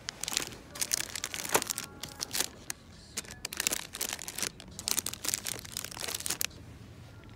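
Thin plastic packaging crinkling and rustling in a run of sharp crackles as bagged glasses cases are handled, dying away about six and a half seconds in.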